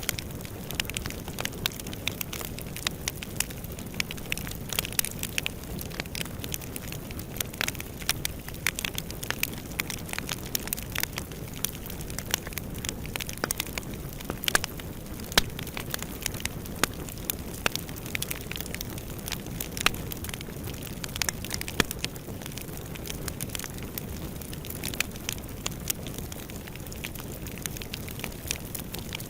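Fire burning in a fireplace, crackling: frequent sharp, irregular pops and crackles over a steady low noise of the flames.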